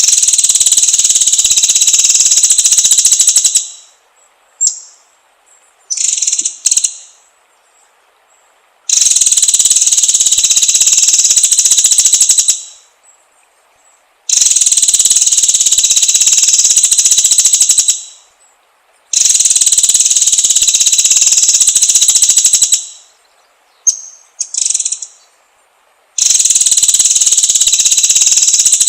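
White-rumped shama (murai batu) singing loud, high-pitched phrases of very rapid repeated notes, each lasting three to four seconds, five times, with short snatches of song between them. This is a pancingan song track meant to excite a caged shama into singing.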